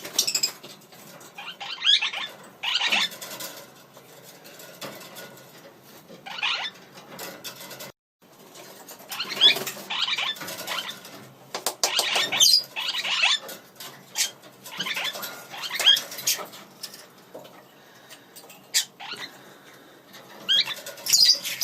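Lineolated parakeets chattering: bursts of short chirps and warbled calls, coming in bouts every few seconds.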